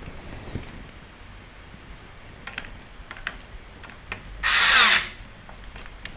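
Small SKIL cordless electric screwdriver running in one short burst of about half a second, a little over four seconds in. Before it come a few light clicks and taps of parts being handled.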